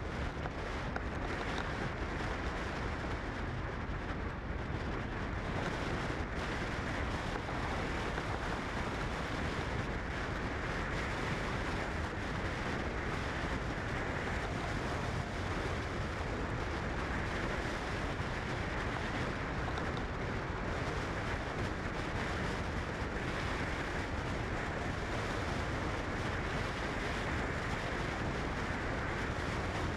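Steady rushing wind and road noise of a car driving, even and unbroken.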